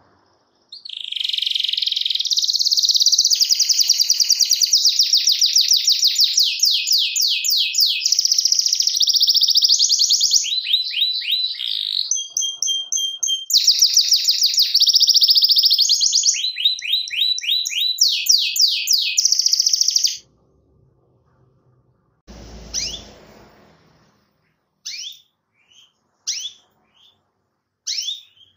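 Canary singing a long, unbroken song of rapid trills and rolls that changes from one repeated phrase to the next, then stops about twenty seconds in. A short noise follows, then a few short separate chirps.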